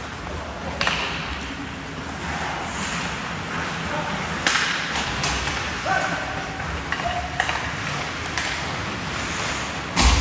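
Ice hockey play in a rink: skates scraping on the ice and sharp clacks of sticks on the puck every few seconds, with a loud thump near the end.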